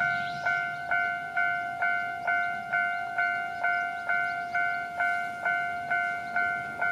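Japanese level-crossing warning bell ringing: an electronic clang struck evenly about twice a second, each strike a clear two-pitch tone that decays before the next.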